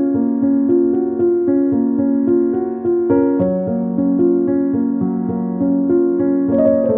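Background keyboard music, piano-like, playing a melody of held notes that change about twice a second over a lower sustained part.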